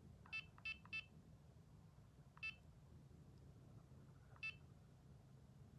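Short electronic beeps from a Garmin eTrex 22X handheld GPS's key tones as its buttons are pressed: three quick beeps in the first second, then single beeps about two and four seconds later. A faint low hum lies underneath.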